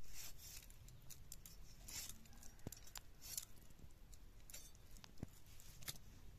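Raw pork being cut against a boti, an upright curved iron blade fixed at floor level: faint, irregular clicks and scrapes as the meat is pressed and drawn across the edge.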